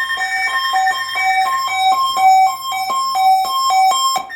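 Short electronic keyboard melody: quick notes, about three a second, hopping mostly between two pitches over a faint steady high whine. It stops abruptly just before the end.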